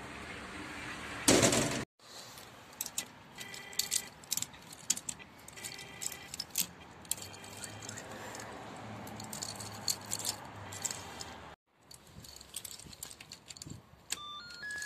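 Keys jangling and clicking in the hand while buttons on an Eltis door-entry intercom keypad are pressed, with short electronic beeps from the panel and a run of beeps of changing pitch near the end. A loud thud about a second in.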